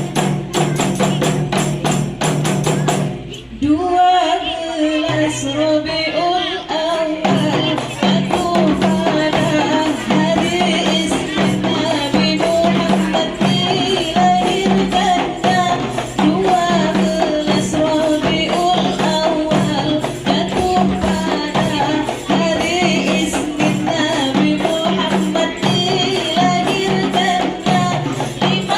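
Rebana frame-drum ensemble playing a fast, steady rhythm under a wavering melody line. The drumming breaks off briefly about three seconds in, then picks up again.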